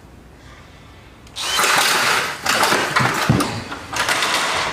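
Electric drill starts running about a second in and runs loudly, with a few brief dips.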